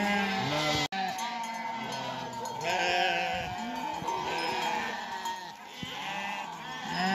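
Small livestock bleating over and over, several calls overlapping, with one loud, longer call about three seconds in.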